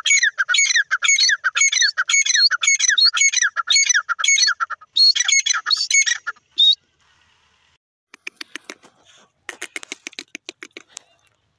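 Grey francolin calling: a loud series of shrill, repeated notes, about two a second, running into a few harsher notes around five to six seconds in. After a short pause, a quieter run of rapid clicking sounds.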